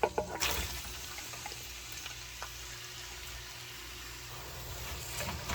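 Cooking oil sizzling in a frying pan, a steady hiss that starts suddenly about half a second in.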